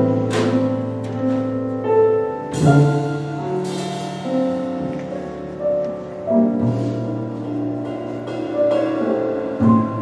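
Jazz piano trio playing live: a grand piano holds sustained chords over double bass notes, with a few soft cymbal swells from the drum kit.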